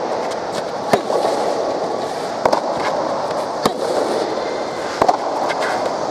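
Soft tennis rally: sharp pops of rackets striking the soft rubber ball, about every second and a half, over steady background noise.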